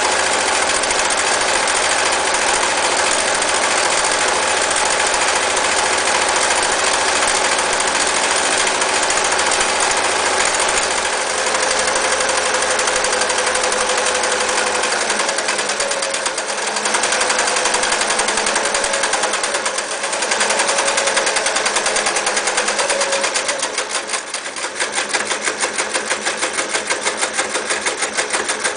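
Singer 315K electric sewing machine running and stitching continuously. Its sound changes a few times partway through, and near the end it settles into a regular pulsing rhythm.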